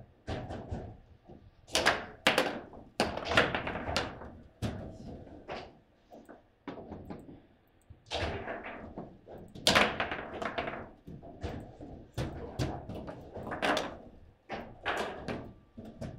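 Table football game in play: an irregular run of sharp knocks and thuds as the figures strike the ball and the ball hits the table, with several louder slams.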